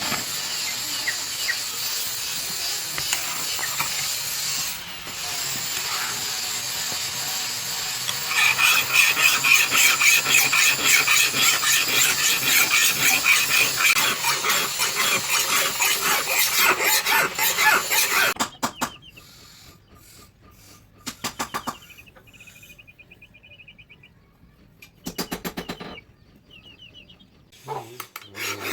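Steel knife blade being abraded by hand: a harsh, rasping scrape that grows louder and shriller about eight seconds in. It then breaks off into a few short bursts of strokes.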